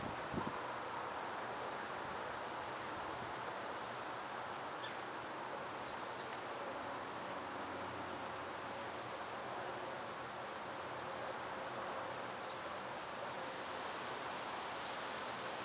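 Crickets trilling in a steady, unbroken high chorus over an even outdoor hiss, with a few faint short high chirps scattered through and a soft knock right at the start.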